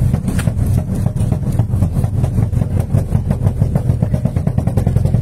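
An engine running with a rapid, steady throb.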